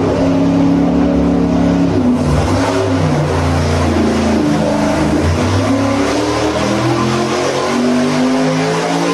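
Lingenfelter-built big block Chevy V8 running on an engine dyno during a power pull: its note holds steady for the first couple of seconds, then climbs steadily in pitch over the last few seconds as the revs sweep up.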